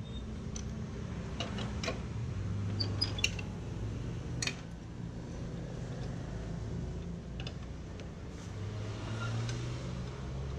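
Scattered small clicks and taps of a screwdriver working on a Canon copier's plastic and metal parts, a few at a time at irregular intervals, over a steady low hum.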